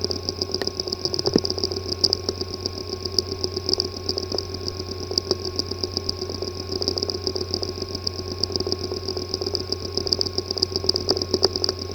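Hard drive with a physically damaged disk assembly running: a steady low hum and high whine, with fast, irregular ticking.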